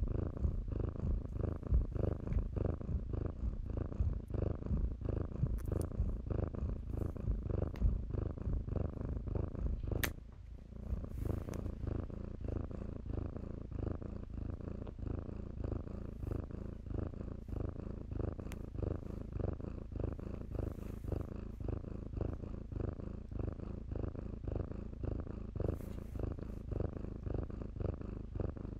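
Kitten purring, a low, rapid, pulsing rumble. About ten seconds in a sharp click comes and the purr briefly drops away, then carries on a little softer.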